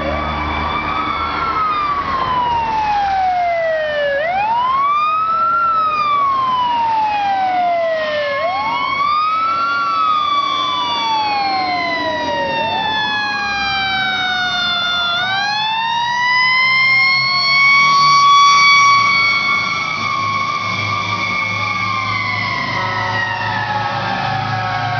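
Fire truck sirens wailing, two at once. One climbs quickly and falls slowly about every four seconds. The other sweeps more slowly and, in the second half, climbs, holds high and slowly winds down, getting loudest as the trucks come closest.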